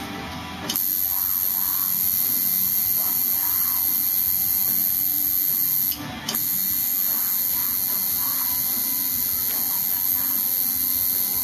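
Tattoo machine buzzing steadily as the needle works into skin. It starts about a second in, stops briefly around the middle and starts again.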